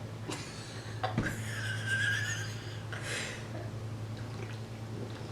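A person drinking Sprite: soft liquid and swallowing sounds, with a hissy stretch from about one to three seconds in, over a steady low electrical hum.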